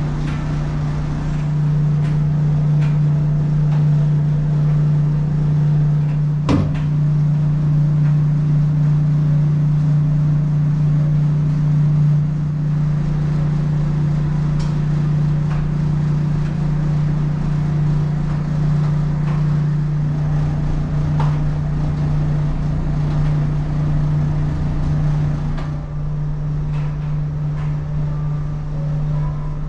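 Steady low hum and rumble of the ferry's machinery heard inside the ship, with a single sharp click about six seconds in.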